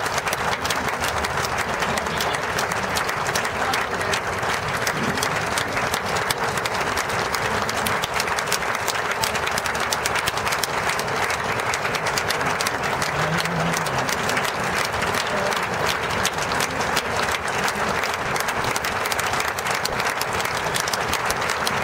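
Crowd applauding steadily, many hands clapping without a break.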